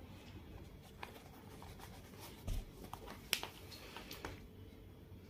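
Faint handling of a mesh running shoe: light scraping and rustling with a few small clicks, a low bump about halfway through and the sharpest click soon after.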